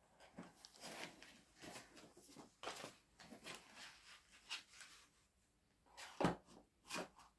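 Faint handling sounds from unboxing: irregular rustles and small clicks of packaging being moved about, with a louder knock about six seconds in and a lighter one just after.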